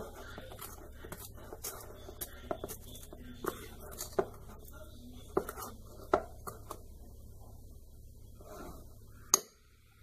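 A spoon stirring brownie batter in a bowl, clinking and scraping against the side in irregular taps, one or two a second, over a steady low hum. A sharper clack comes near the end, and then the sound cuts off suddenly.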